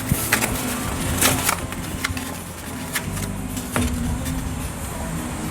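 Paper handling: a few sharp crinkles and taps as a folded poster is handled, over a steady low hum.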